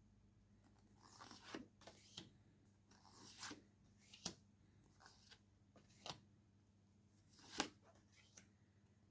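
Faint handling of paper photo postcards leafed through one at a time: soft swishes of card sliding over card, each ending in a light tap or snap, about once a second, with the sharpest snap near the end.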